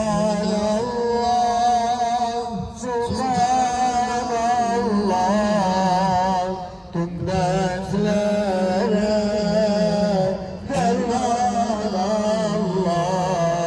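A man singing a slow Turkish Islamic hymn (ilahi) in long, ornamented held notes with a wavering pitch. He breaks briefly for breath about every four seconds.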